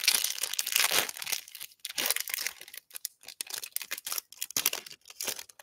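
Foil wrapper of a Panini Prizm football trading card pack crinkling and tearing as it is ripped open by hand. A dense run of crackles that stops near the end.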